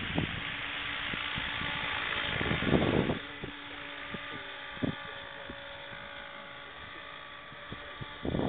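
Scale electric RC helicopter flying low, its electric motor and rotor giving a steady whine, with wind gusting on the microphone, strongest about three seconds in.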